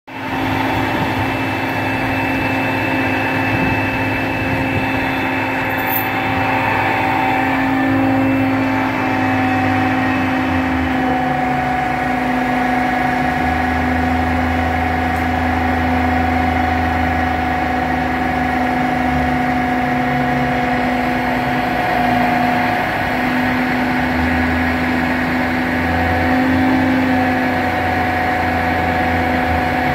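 Crane engine running steadily while holding a suspended load, with a steady whine over it; its low rumble swells a few times, during the middle and again near the end.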